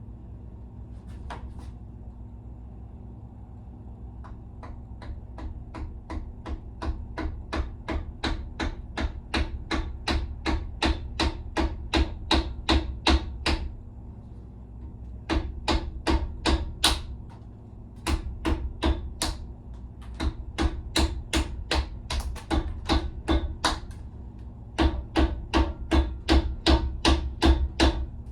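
Hammer tapping on a block of wood to drive small steel expansion plugs into the oil galley holes of a Ford small-block engine block. Quick, steady taps about three a second come in four runs with short pauses between them, after a single tap near the start.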